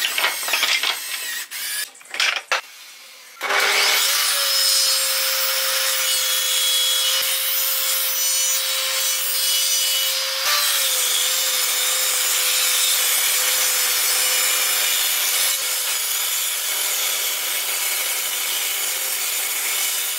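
Pallet wood strips knocking together as they are handled on a wooden bench. About three seconds in, a table saw starts ripping a pallet board lengthwise, a loud steady cutting noise over a steady whine, with a slight shift in pitch about halfway through.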